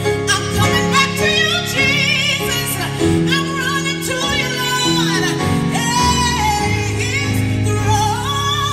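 Female gospel singer singing live into a microphone with wide vibrato, bending the melody through runs over sustained keyboard chords.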